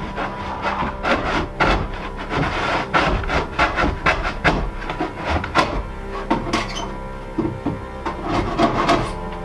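Wooden boards knocking and scraping against a wooden workbench as they are handled and slid about, in an irregular series of sharp knocks about two a second. Background music plays under it.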